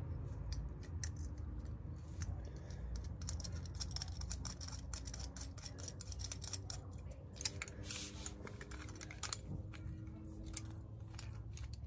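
Small metal parts of an exhaust whistle kit, its bolts, nuts and a thin steel bracket, clicking and clinking in the hands as they are fitted together, in many small, irregular ticks.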